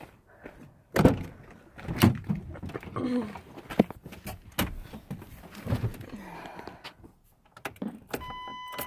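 Thumps and rustling of someone opening a pickup truck's door and climbing into the cab, then about eight seconds in a steady electronic warning tone from the truck's dashboard comes on as the key is turned.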